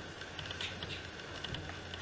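Babblers giving a string of short, high squeaky chirps, several a second, over a low steady hum.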